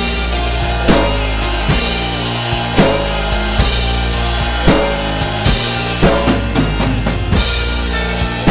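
Practice drum kit played in a prog-rock groove, snare, bass drum and cymbal hits at uneven spacing, over a recorded backing song with sustained low notes.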